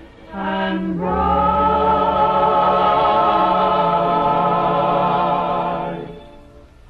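Music with choir singing: a short phrase, then one long held note that fades out near the end.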